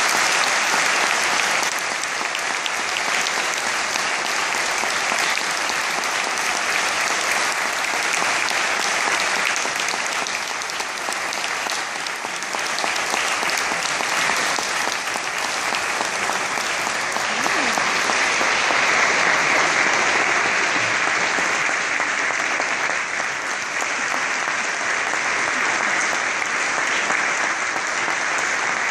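Large audience applauding steadily and at length, without a break.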